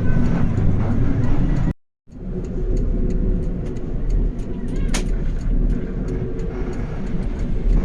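Road traffic noise with a vehicle engine running close by, a steady low rumble. The sound cuts out completely for a moment about two seconds in.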